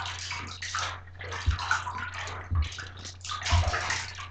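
Water being scooped up and poured over a small dog sitting in a shallow bath, in uneven splashing spurts. Three soft low knocks come about a second apart.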